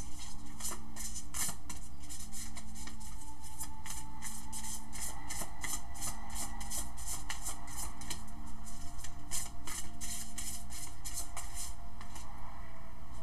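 A deck of tarot cards shuffled by hand: a long run of quick, soft card slaps and flutters, busiest and loudest a little past the middle, over a faint steady background tone.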